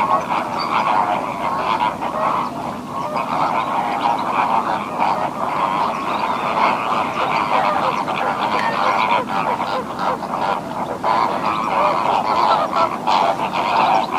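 Flamingos honking and chattering: a dense, continuous chorus of overlapping goose-like calls, as from a flock.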